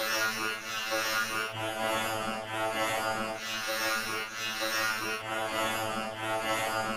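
Electronically distorted, buzzing audio effect: a dense, steady drone of many stacked tones, wavering in level.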